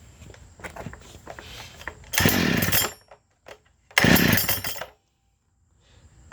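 Two pulls of the recoil starter cord on a Makita DPC7311 two-stroke concrete saw, cold, with the choke on and the decompression valve open. Each pull cranks the engine for under a second, the second starting about a second and a half after the first ends.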